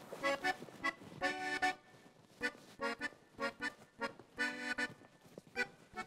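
Background music: a light tune of short, separate notes.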